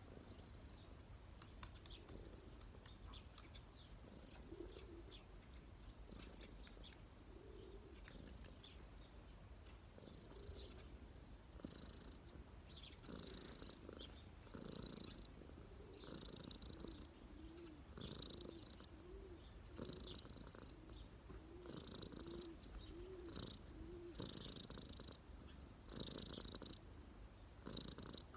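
Domestic cat purring steadily close to the microphone, the purr swelling and fading in a repeating cycle every second or two with its breathing: a relaxed, contented cat.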